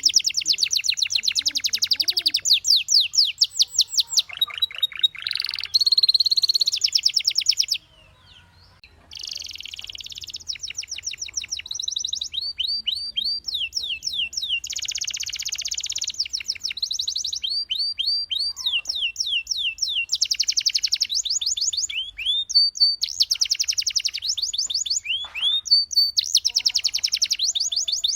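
Domestic canary singing: long, fast trills and rolls alternating with runs of quick rising whistled notes, with a short break about eight seconds in.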